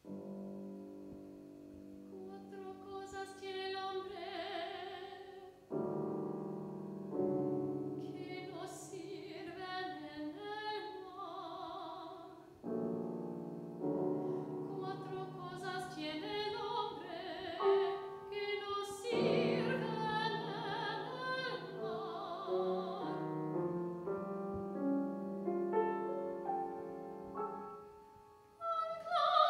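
Soprano singing a Spanish art song with vibrato over grand piano accompaniment. The piano enters first, with the voice joining about three seconds in, and the music briefly dies away near the end.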